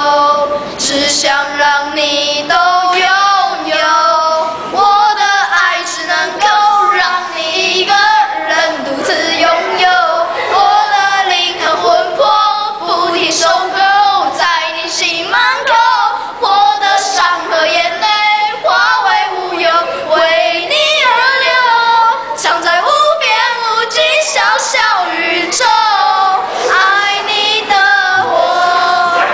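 Two boys singing a Mandarin pop song together, their children's voices high and continuous.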